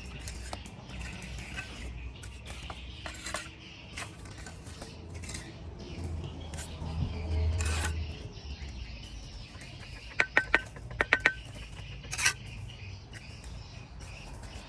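Bricklaying work: sharp metallic taps and clinks of tools on brick, with a quick run of ringing taps about ten seconds in and a low rumble swelling briefly a little before it.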